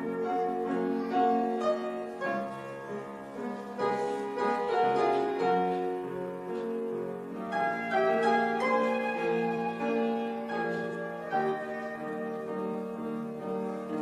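Classical chamber music: a flute melody over keyboard accompaniment, with notes held and moving in a flowing line.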